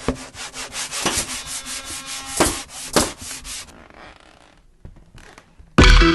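A quick run of rubbing strokes, about five or six a second, stopping after nearly four seconds, followed by a few faint sounds. Loud electronic music cuts in near the end.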